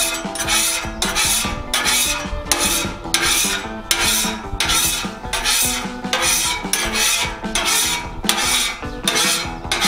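Metal spatula scraping across a steel griddle top in a steady rhythm of rasping strokes, a little over one a second, clearing cooking residue off the surface after use.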